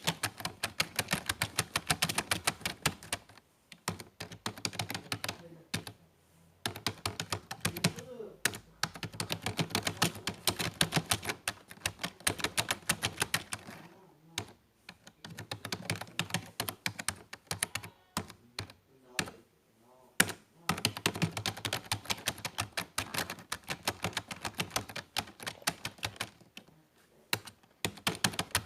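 Typing on a computer keyboard: rapid runs of key clicks, several a second, in bursts broken by short pauses.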